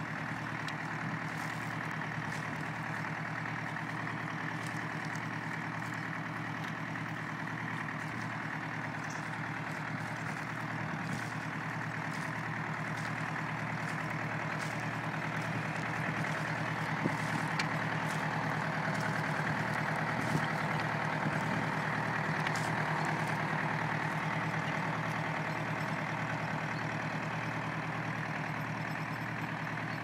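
Massey Ferguson tractor's four-cylinder engine running steadily under load as it pulls a two-furrow plough through sod. It gets a little louder for a stretch in the middle.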